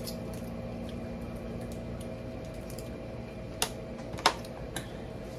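A few sharp cracks and clicks of seafood shells being broken apart while eating, the loudest about four seconds in, over a steady low hum.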